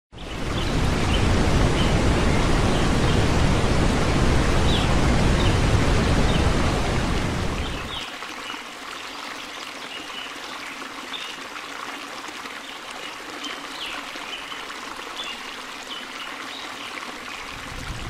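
A large waterfall roaring, loud and steady with deep rumble. About eight seconds in it cuts to a much quieter, thinner water hiss without the deep rumble, with faint short chirps scattered through it.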